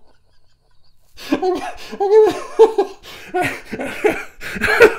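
A man laughing in several uneven bursts, starting about a second in after a brief silence.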